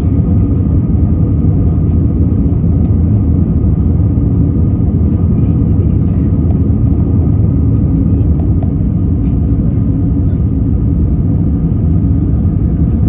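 Steady cabin roar of an Airbus A320neo climbing out after takeoff, heard from a window seat near the wing: engine and airflow noise, heaviest in the low end, with a faint steady hum above it.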